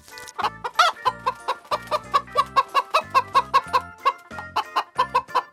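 A flock of hens clucking in a rapid, even run of short calls, about five a second, the loudest about a second in. Background music with a steady beat plays underneath.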